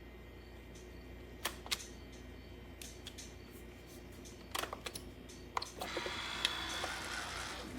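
Several sharp clicks and knocks, a cluster of them near the middle, then a steady hiss starting about six seconds in, typical of a Keurig single-serve coffee maker being worked and starting to brew.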